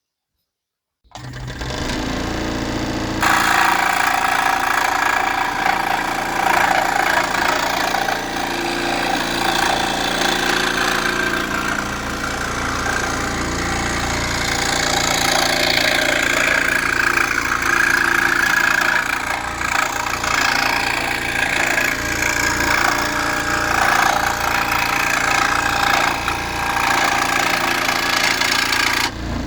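Charnwood SS18F 18-inch scroll saw with its 120 W motor starting up about a second in. From about three seconds in the reciprocating blade is cutting through a board, running steadily until it stops near the end.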